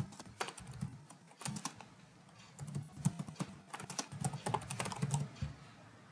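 Computer keyboard being typed on: quick runs of key clicks, with a short pause about two seconds in.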